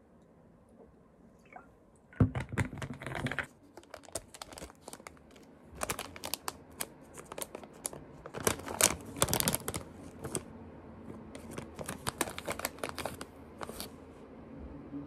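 Handling noise: quick irregular clicks and crinkling rustles starting about two seconds in, loudest near the start and again toward the middle.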